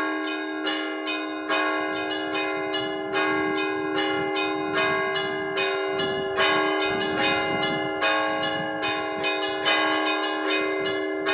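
Orthodox church bells rung by a bell ringer in a quick, overlapping pattern of several bells, about two strikes a second, over the long ringing tones of larger bells. This is the peal that calls people to the evening service.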